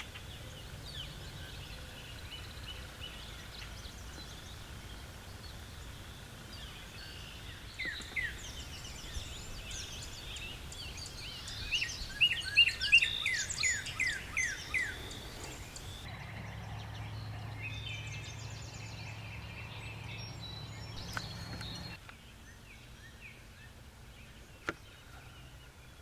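Wild turkey yelps outdoors: a couple of notes about eight seconds in, then a louder run of about eight falling notes over some three seconds, with faint bird calls behind. A single sharp click comes near the end.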